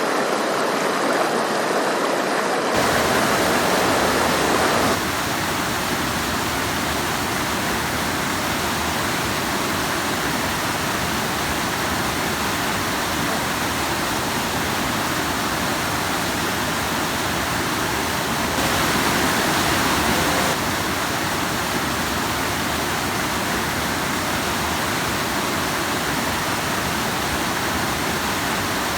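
Rushing stream splashing over rocks, a steady dense rush of water. It turns abruptly louder and brighter from about three to five seconds in, and again for a couple of seconds around twenty seconds in.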